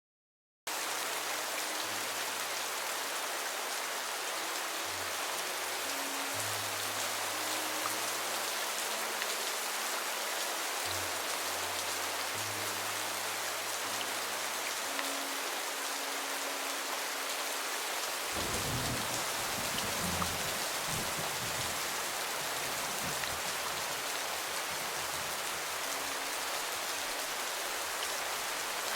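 Steady rain hiss throughout, with a slow, low melody of held notes underneath. About 18 seconds in, a low rumble of thunder rolls for a few seconds.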